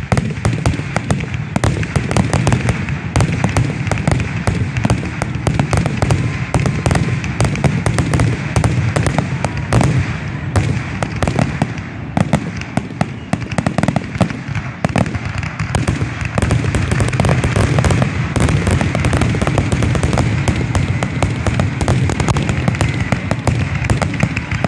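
Aerial fireworks display: shells bursting in quick succession with booms and crackling, a dense barrage with no pause.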